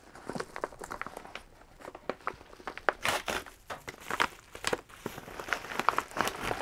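A padded paper mailing bag being handled and opened by hand, crinkling and crackling in quick, irregular rustles.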